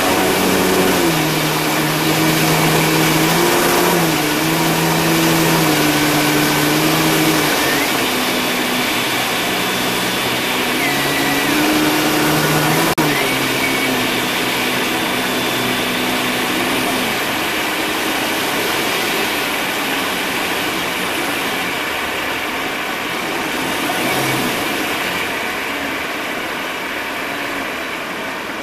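Piper Pawnee's piston engine and propeller running in flight, heard from inside the cockpit under a steady rush of airflow. The engine pitch steps down a few times in the first half, as if power is being reduced, and after about 17 s the engine tone fades and the air rush dominates.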